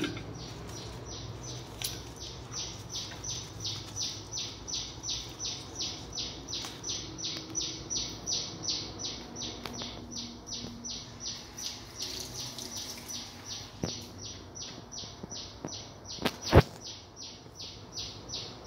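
A bird chirping over and over in a steady, even rhythm of about three short high chirps a second. Near the end there is one sharp knock, the loudest sound.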